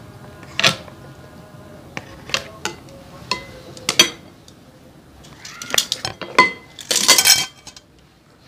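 Metal tongs and a ladle clinking and scraping against a large metal wok and bowls as curry noodles and broth are served out, in a string of separate sharp clinks. A denser clatter comes near the end.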